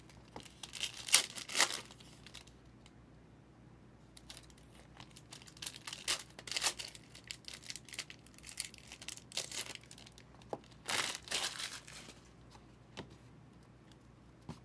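Trading card box packaging being crinkled and torn open by hand, in irregular bursts of rustling with short pauses between.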